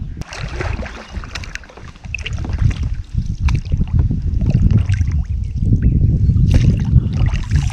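Paddle strokes splashing and dripping in river water from a paddled inflatable kayak, over a heavy, gusty rumble of wind on the microphone.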